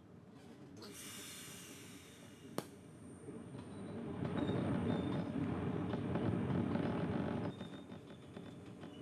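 TIG welding arc tacking a steel engine mount onto a motorcycle frame. A brief hiss comes first, then a sharp click about two and a half seconds in. A steady hiss and buzz with a thin high whine follows, louder in the middle and stopping about seven and a half seconds in.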